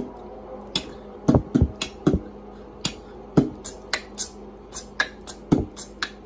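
A run of irregular sharp clicks and taps, with several heavier knocks among them.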